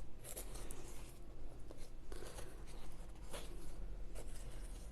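Butter being spread over a garlic and coriander naan with a utensil: soft scraping strokes, several of them about a second apart.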